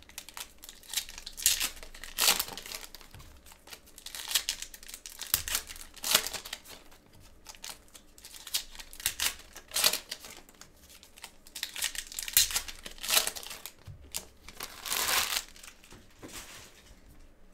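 Foil trading-card pack wrappers being torn open and crumpled by hand, in repeated short crinkling bursts that stop near the end.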